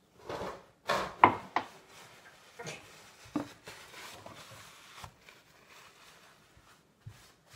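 A series of knocks and clicks with some rustling as baking things are handled over a glass mixing bowl, the loudest knocks a little over a second in.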